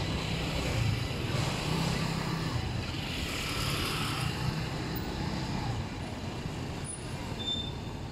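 Street traffic: a Sirio tram rolling away along its rails while motor scooters and a car pass close by, a steady low rumble of wheels and engines. A brief high squeak near the end.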